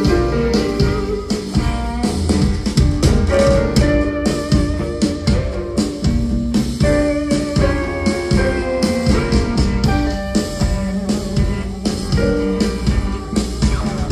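Live blues band playing an instrumental break: an electric guitar riff over a steady drum-kit beat, with piano.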